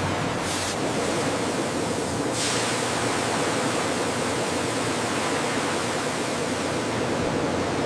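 Steady, hiss-like noise of food-factory processing machinery running, with no distinct strokes or rhythm; it grows brighter and hissier about two and a half seconds in.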